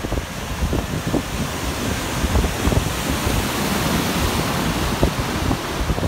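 Ocean surf breaking and washing ashore, its hiss swelling through the middle. Wind buffets the microphone in short low rumbles throughout.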